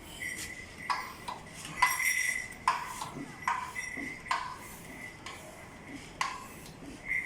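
Hand pump being worked to inflate a bicycle tyre, giving a metallic clink with a brief ringing tone at each stroke, roughly once a second and unevenly spaced.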